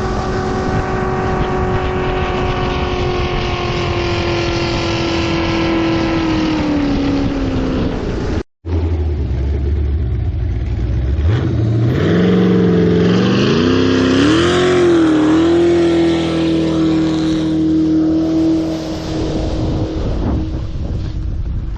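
Turbocharged LS V8 jet boat engine running at high revs, its pitch sagging slowly. It breaks off abruptly about eight seconds in, comes back low, then revs up in steps and holds a steady high run.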